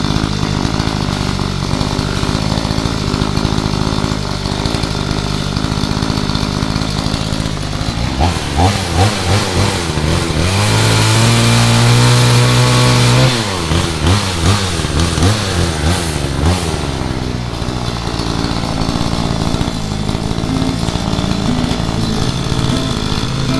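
Cheap gas chainsaw running steadily, then revved in short throttle blips and held at high revs for about three seconds, followed by more blips before it settles back to steady running.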